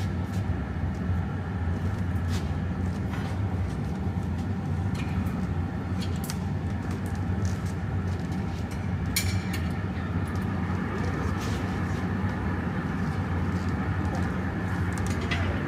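Steady rushing roar of a gas-fired glory hole furnace, with scattered sharp clicks and taps from the iron punty rod being worked on its rest.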